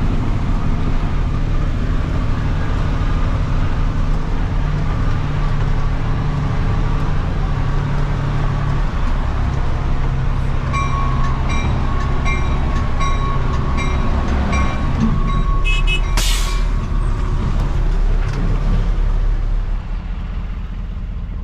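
Heavy diesel engine running steadily at a construction site. About halfway through, a run of short regular beeps at about two a second starts, followed by a short sharp hiss; the engine sound eases off near the end.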